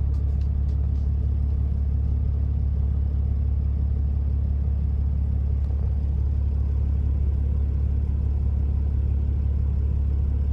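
Toyota Land Cruiser 80 running steadily: a constant low rumble with no revving.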